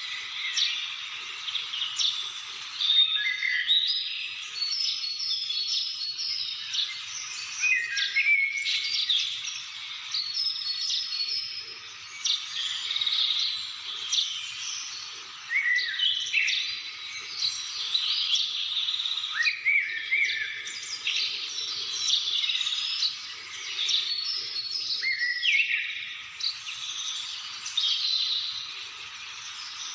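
Many wild birds singing and calling at once: a dense, unbroken chorus of chirps, trills and short whistled notes.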